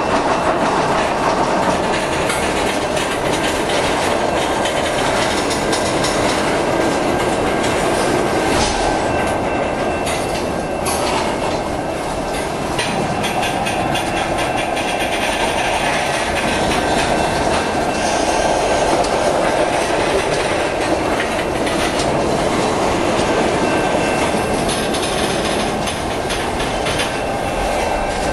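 Freight train's tank cars rolling steadily past close by, their wheels clacking as they cross the track diamonds, with a faint thin squeal from the wheels.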